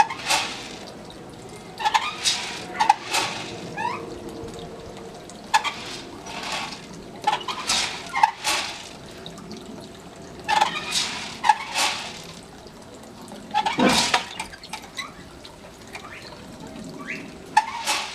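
Water splashing and pouring at a gatakon water device, in irregular bursts every second or two, with one louder knock about three-quarters of the way through.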